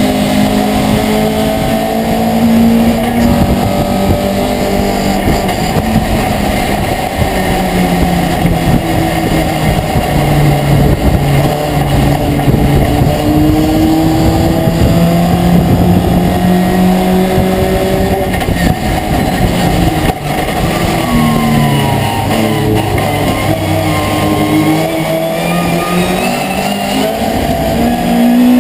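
Racing pickup truck's engine heard from inside the cab under race load. Its pitch climbs and falls with throttle and gear changes, dropping low for a few seconds about two-thirds of the way through as it brakes for a corner, then climbing again, over steady road noise.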